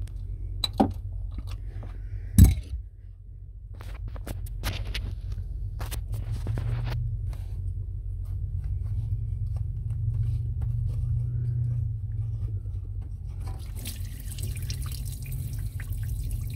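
Clicks and clinks of a ratchet and metal parts as a knock sensor is worked loose from a marine engine block, with one louder knock. About two-thirds of the way through, raw cooling water starts streaming out of the open sensor port in the block, draining the engine for winter.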